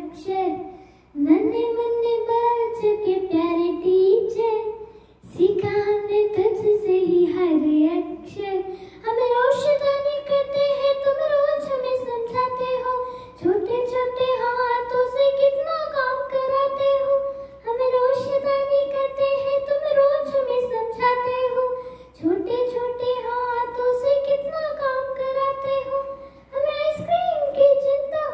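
A young girl singing a Hindi song into a handheld microphone, in phrases of a few seconds with long held notes and short breaks between them.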